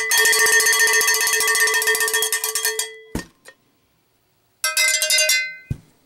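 A cowbell rung rapidly, many quick strokes with a steady metallic ringing, for about three seconds. It stops short with a knock. After a short silence, a second, shorter burst of ringing at a slightly higher pitch comes in, also cut off with a knock.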